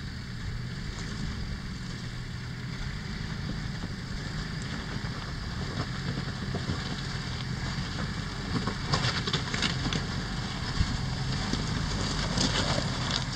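Jeep Wrangler YJ running at low revs as it crawls over a rocky trail, with tyres crunching and popping over loose stones. It gets louder and the crunching sharper as it draws close, about nine seconds in.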